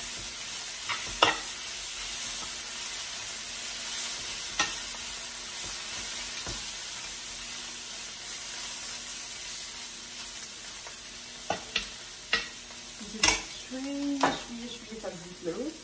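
Strips of meat sizzling steadily as they sauté in a ceramic-coated frying pan. A metal spoon stirs them, giving occasional sharp taps and scrapes against the pan, clustered toward the end.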